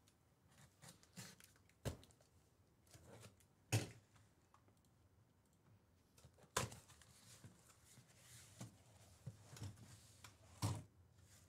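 Cardboard shipping case being handled and opened: a few sharp knocks and scrapes of cardboard, with faint rustling between.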